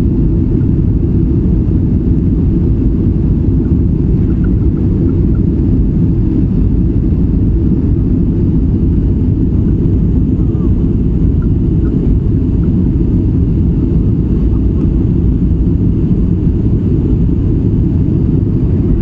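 Steady, loud low rumble of a Boeing 737 jet airliner's engines and rolling noise, heard from inside the passenger cabin as the plane moves along the runway.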